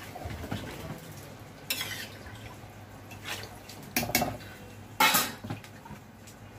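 A metal spoon stirring in an aluminium pressure-cooker pot and knocking against it: a few sharp metallic clinks, with the loudest, ringing clanks about four and five seconds in.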